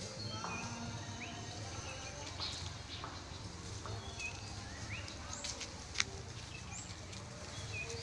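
Animal calls in a forest: many short rising chirps, overlapping and scattered, over a low steady hum, with one sharp click about six seconds in.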